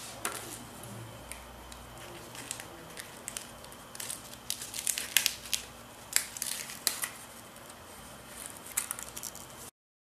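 Sheet of stiff paper being handled and pressed by hand on a cutting mat: irregular crinkles and sharp paper clicks, thickest in the middle stretch, then the sound cuts off abruptly near the end.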